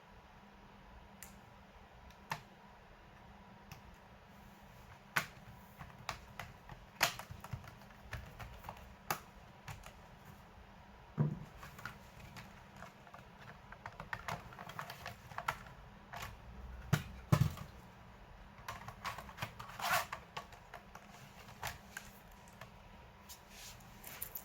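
Irregular light clicks and taps on a laptop's hard plastic, with two duller knocks about eleven and seventeen seconds in.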